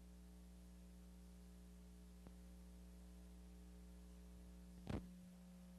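Near silence with a steady low electrical hum in the sound system, broken by one brief noise about five seconds in.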